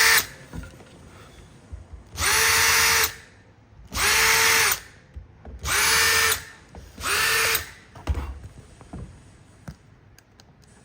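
Power drill with a countersink bit countersinking screw holes in softwood, run in short bursts: one burst ending right at the start, then four more about two seconds apart, each whine rising as the motor spins up and falling as it stops. A few light knocks follow near the end.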